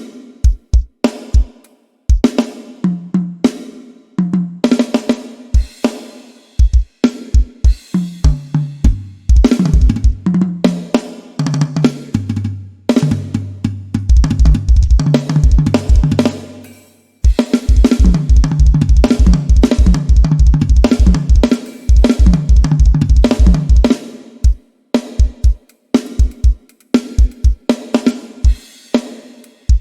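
Sampled drum kit (Addictive Drums 2 virtual instrument) playing grooves with snare, hi-hat and cymbals, with tom fills that step down in pitch and fast runs of bass-drum strokes, briefly pausing near the end.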